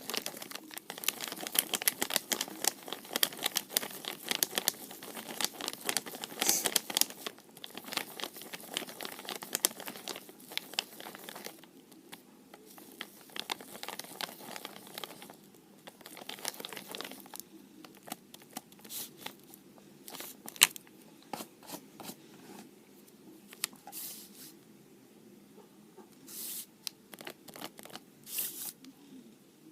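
Homemade toothpaste-glue-and-salt slime being handled, crackling and popping with sticky clicks. The clicks come thick for the first twelve seconds or so, then grow sparser, with short hisses.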